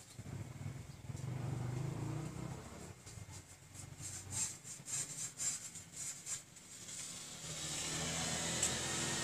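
Hand and a plastic sheet rubbing and dabbing wet paint across a painting board, with a run of quick brushing strokes, about three a second, in the middle.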